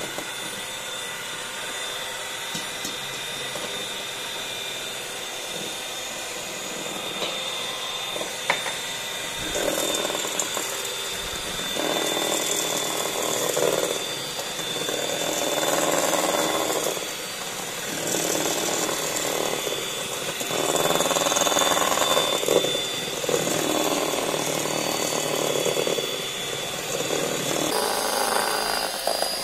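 Electric hand mixer running, its beaters whipping egg whites and sugar into foam in a stainless steel bowl. A steady high motor whine throughout, with louder whisking that swells and fades every couple of seconds in the second half.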